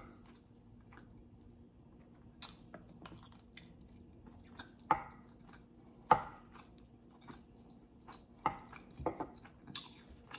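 Close-miked eating: chewing and wet mouth clicks, with sharp taps of a metal spoon scooping rice and beans off the board. The loudest tap comes about six seconds in. A paper napkin rustles near the end.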